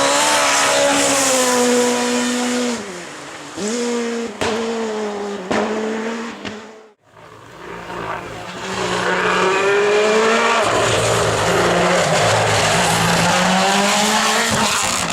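World Rally Car engines at full stage speed: one car holds high revs, lifts off about two and a half seconds in, and blips through downshifts with sharp cracks from the exhaust. After a brief near-silent break about seven seconds in, a second car comes in, its revs rising and then holding high.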